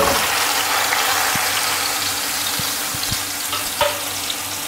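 Marinated leg of lamb sizzling as it is laid into hot oil and fried onions in an aluminium pressure cooker. The sizzle is loudest at the start and slowly eases, with a few faint knocks of the meat against the pot.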